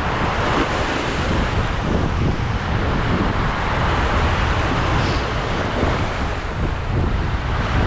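Sea waves washing against rocks, with wind buffeting the microphone in a steady low rumble.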